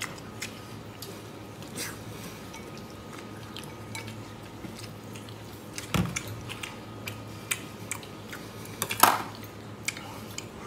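Mouth-close eating sounds of braised pork, with chewing and scattered clicks of chopsticks against ceramic bowls. The sharpest clinks come about six and nine seconds in.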